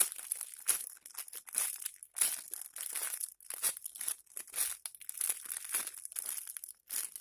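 Foam squishy toy shaped like a strawberry shortcake being squeezed and handled close to the microphone: a string of irregular crinkling rustles.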